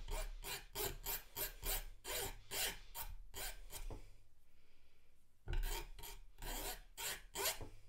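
Flat hand file rasping in quick back-and-forth strokes, about four a second, across the cut end of a metal wire hinge pin, rounding off its sharp end. The strokes stop for about a second and a half past the middle, then start again.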